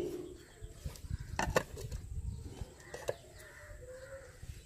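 Birds calling in the open air, with two sharp knocks, one about a second and a half in and one about three seconds in.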